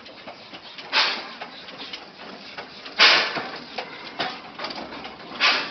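Small narrow-gauge locomotive drawing its train slowly past, giving loud bursts of hiss about every two and a half seconds, with fainter ones between them.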